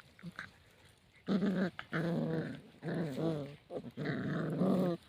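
Canine growling and snarling: a run of pitched, wavering growls starting about a second in, each half a second to a second long, with short breaks between them.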